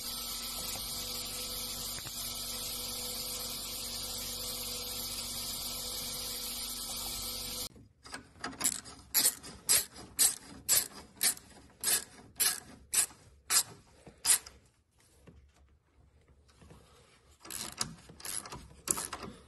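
Steady machine hum with a few steady tones from a small-hole drilling machine boring a copper coin. About eight seconds in it cuts off suddenly to a hand ratchet tightening a car battery terminal clamp: quick clicking strokes, a couple a second, a short quieter pause, then more strokes near the end.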